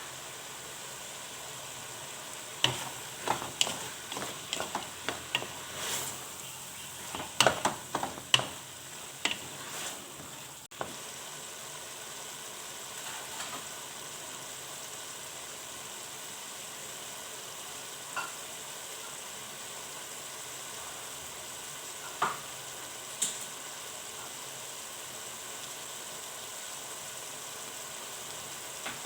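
A paella base of fish and vegetables sizzling steadily in a pan while a spoon stirs it. A run of sharp knocks and scrapes from the spoon on the pan comes in the first ten seconds, then a few single knocks later on.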